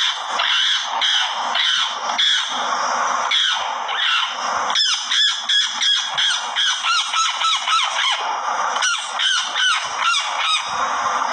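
Harsh bird calls repeated several times a second without a break, from a hawk struggling with a pinned magpie.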